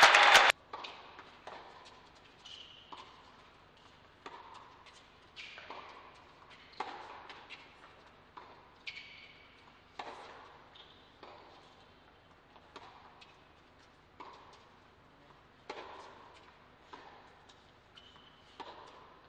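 Tennis ball rally on an indoor hard court: a sharp pop of racket on ball or ball on court about once a second, each ringing briefly in the quiet hall.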